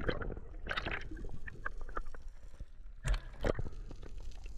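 Muffled underwater sound just after a diver's entry: bubbles and sloshing water around a submerged camera, with scattered small clicks and two louder knocks a little after three seconds in.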